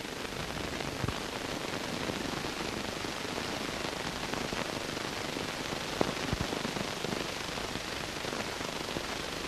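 Steady hiss and crackle with a few faint clicks about one and six seconds in: the background noise of an old film soundtrack.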